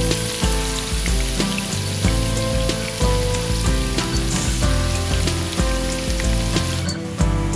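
Food sizzling as it fries in hot oil, a steady hiss that cuts off abruptly about seven seconds in, with background music playing over it.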